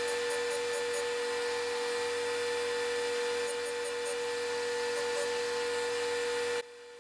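Table saw motor running steadily, spinning a 6-inch diamond lap wheel with a constant hum, while the carbide teeth of a circular saw blade are lightly ground against it, heard as a few faint high ticking clusters. The sound cuts off abruptly near the end.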